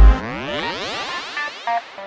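Electronic background music: a deep sustained bass note cuts off just after the start, followed by a sweeping synth glide and short, clipped synth notes.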